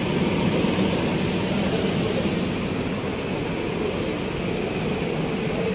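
A vehicle engine running steadily at idle.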